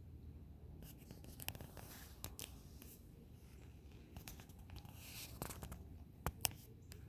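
Doe deer wheezing and blowing air hard through her nose: faint hissing exhalations, one about a second in and a longer one about five seconds in. Several sharp clicks are mixed in, the two loudest close together near the end.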